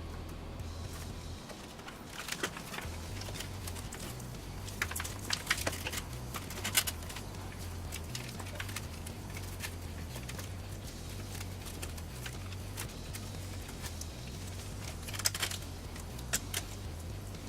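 Scattered light clicks and small rattles of computer parts and screws being handled, in a few short clusters, over a steady low hum.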